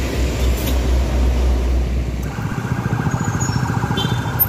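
Low rumble of heavy road traffic, cut off about two seconds in by a steady, rapidly pulsing electronic siren from the buses' escort.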